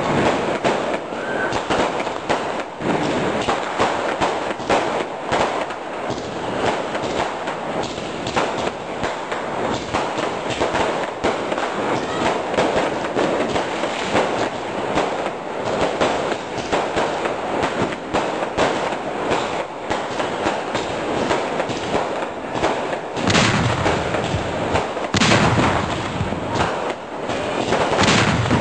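Fireworks going off in a dense, continuous barrage of crackles and bangs, with a few louder, deeper booms near the end.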